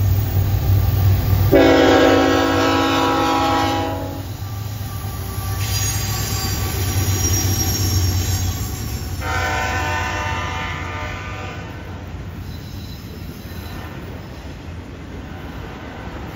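CN freight train's diesel locomotives passing with a steady low engine rumble. The locomotive horn sounds two long blasts, the first about a second and a half in and the second about nine seconds in. As the autorack cars roll by on the curve, faint wheel squeal comes in near the end.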